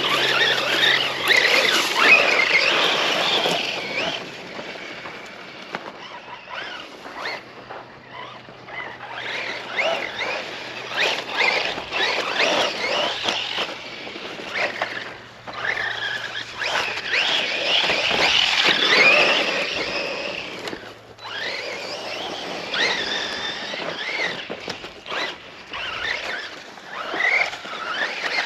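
Electric RC truck's brushless motor whining, its pitch rising and falling with the throttle in repeated spurts of acceleration, quieter between runs.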